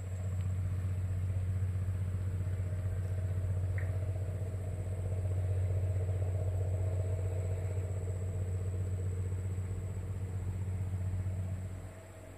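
Engine running steadily with a low, even hum that cuts off shortly before the end.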